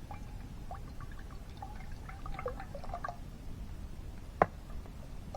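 Cooking oil glugging out of a bottle into a pan: a run of short gurgles for about three seconds. Then a single sharp knock, the loudest sound.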